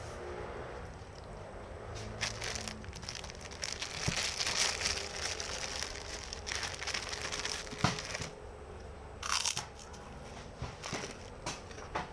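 Close-up eating sounds of a person eating instant noodles: irregular noisy mouthfuls and chewing, with a couple of sharp clicks.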